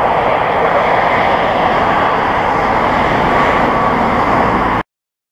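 Boeing 747-8F freighter's four GEnx-2B turbofan engines at take-off and climb power, a steady jet engine noise as the aircraft climbs away. The sound cuts off suddenly near the end.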